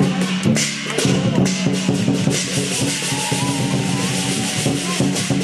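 Chinese percussion accompanying a fire dragon dance: drum, gongs and cymbals beaten loudly in a fast, steady rhythm.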